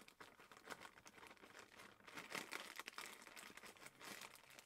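Crumpled paper towel crinkling as it is handled, a dense, irregular run of small crackles.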